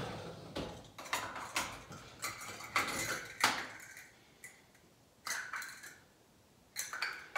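Kitchenware knocking and clinking as it is handled and rummaged through: a string of clicks and clatters, with a lull about four to seven seconds in that is broken by one clatter.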